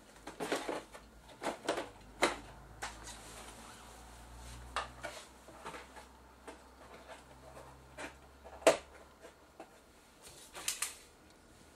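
Scattered clicks, knocks and rustles of someone handling things while fetching a part at a workshop bench, with one sharp knock about three-quarters of the way through.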